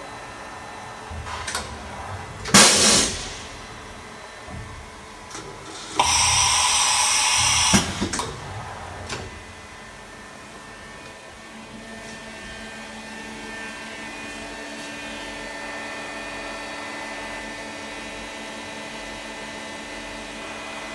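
Supermax YCM VMC65A CNC vertical machining center running: a short, loud burst about two and a half seconds in, then a hiss lasting nearly two seconds from about six seconds, with a few clicks. From about eleven seconds a steady whine of several tones sets in and slowly grows louder.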